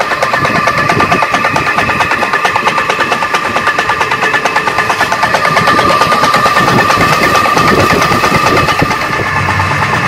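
Belt-driven donkey pump (electric motor driving a piston water pump) running with a fast, loud, rattling knock over a steady whine. It is the loud noise of the pump on old, dirty oil with a badly scored piston and worn crank set.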